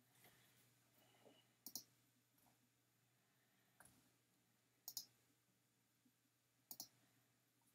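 Faint clicks of a computer mouse, three times, each a quick double click of press and release, over a low steady hum.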